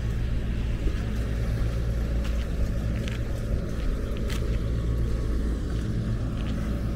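Lawn mower engine running steadily, a low even drone, with a few faint clicks over it.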